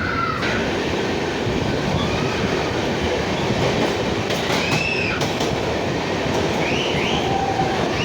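Train running with a steady rumble, with several brief squeals that rise and fall in pitch, typical of wheels squealing on the rails.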